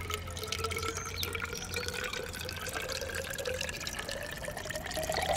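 Rainwater poured from a rain gauge's container into a glass graduated measuring cylinder: a steady trickle whose pitch rises slowly as the cylinder fills. This is the daily emptying of the gauge to measure rainfall.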